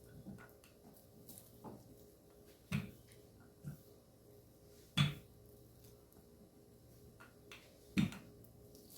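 Kitchen work: scattered light taps and clicks, with three louder knocks about three seconds apart, over a steady low hum.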